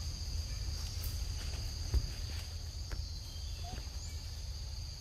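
Steady, high-pitched buzzing of a forest insect chorus, over a low rumble, with a single knock about two seconds in.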